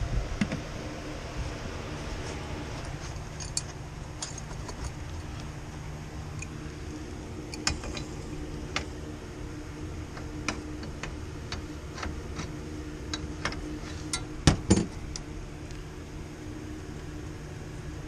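Scattered light metallic clicks and taps from tools and parts being handled, over a steady low machine hum. Two louder knocks come close together about fourteen and a half seconds in.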